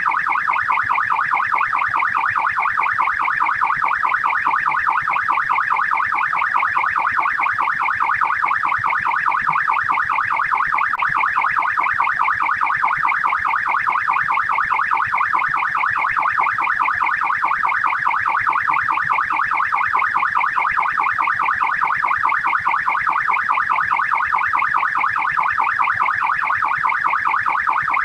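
Australian police siren in the fast yelp setting: an electronic wail sweeping rapidly up and down in pitch, repeating many times a second without a break.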